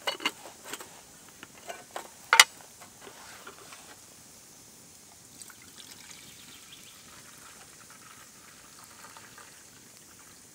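A handful of sharp knocks and clinks, the loudest about two and a half seconds in, then a faint steady trickle of liquid being poured.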